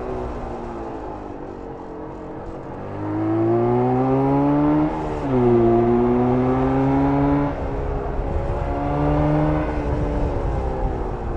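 1994 Jawa 350 two-stroke twin engine pulling hard under acceleration, its note climbing in pitch, with a quick drop at a gear change about five seconds in, a second climb, then the throttle easing about seven and a half seconds in before a short pull again near the end.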